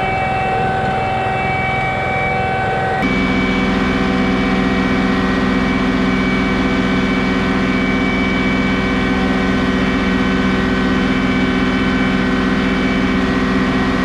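John Deere 2038R compact tractor's three-cylinder diesel engine running steadily, as when pulling a middle-buster plow through the potato rows. The engine note shifts abruptly about three seconds in, then holds steady.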